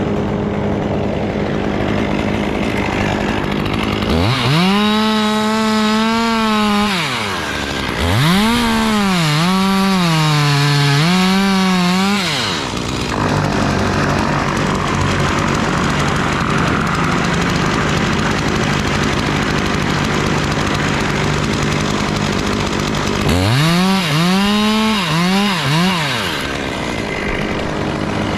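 Chainsaw revving up and cutting wood in three spells, starting about 4, 8 and 23 seconds in, its pitch rising and dipping under load. A steady engine hum runs underneath between the spells.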